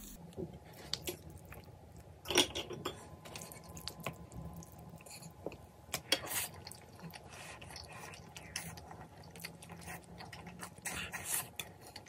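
Close eating sounds: two people chewing and slurping saucy noodles and chicken, with scattered clicks of chopsticks against plates and the pan. The loudest sound comes a little over two seconds in.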